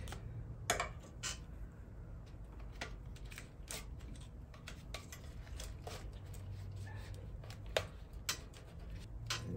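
Scattered light clicks and taps at irregular moments as hands work loose wiring and tie wraps under a motorcycle's seat, over a faint low steady hum.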